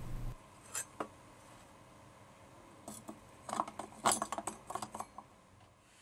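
Faint metallic clinks and taps of steel tongs and a stainless steel crucible: two short clicks about a second in, then a quick cluster of clinks around the fourth and fifth seconds.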